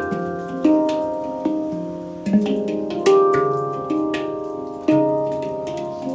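Handpan played by hand: single struck notes at an unhurried pace, about one a second, each ringing on with a long decay so the tones overlap into a calm melody.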